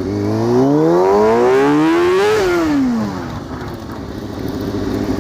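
Kawasaki ZX-6R 636 inline-four sport-bike engine revving up steadily for about two seconds, then dropping back and running at a steady low note, as the rear tire is warmed up.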